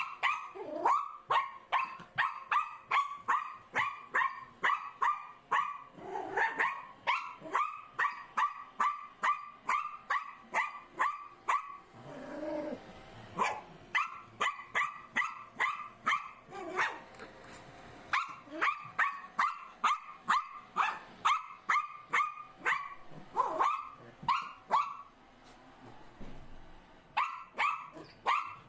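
Small Bichon Frise–poodle mix dog barking rapidly and repeatedly, about two or three yaps a second, at a robot vacuum cleaner it takes for an intruder. The barking breaks off twice for a second or two.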